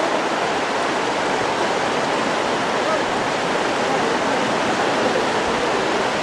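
Rushing white water of river rapids: a steady, loud hiss and rumble with no breaks.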